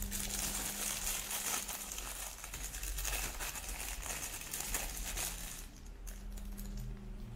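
Clear plastic wrapping crinkling as it is pulled off a small plastic toy by hand: a dense crackle that thins out to a few scattered crinkles after about six seconds.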